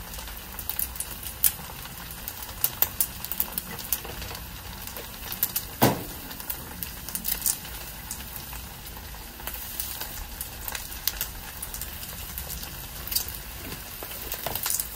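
Chicken, rice and vegetable stir fry sizzling in a hot pan over a charcoal grill as teriyaki sauce is poured over it: a steady hiss with scattered crackles and pops, and one sharper click about six seconds in.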